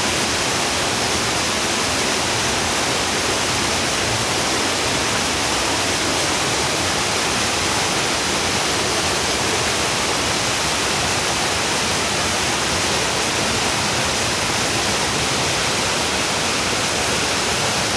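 Mountain stream rushing over a small waterfall and cascade: a steady, even rush of falling water with no breaks.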